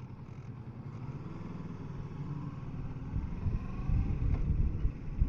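Kawasaki Versys 650 parallel-twin engine running under way, its note rising and growing louder, with low wind rumble on the microphone building from about three seconds in.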